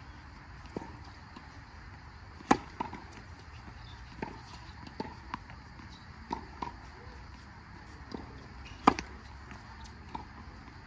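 Two tennis serves, the strings striking the ball sharply about two and a half seconds in and again about nine seconds in. Fainter ball knocks come in between.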